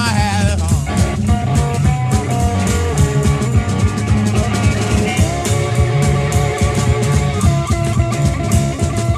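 Electric blues band playing an instrumental passage between vocal lines: an amplified electric guitar lead over a rhythm guitar and a drum kit keeping a steady beat.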